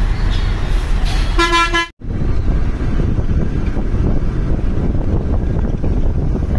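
Road traffic with vehicle engines and tyre noise, and a single short horn toot of about half a second that cuts off abruptly about two seconds in; after that a steady rumble of traffic and engines.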